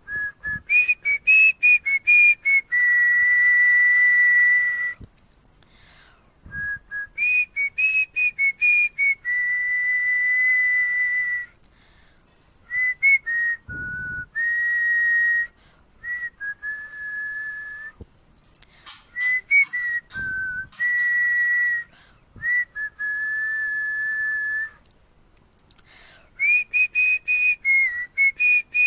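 A person whistling a melody through pursed lips, close into an earphone microphone: phrases of quick short notes, each settling into a long held note, with brief pauses between phrases.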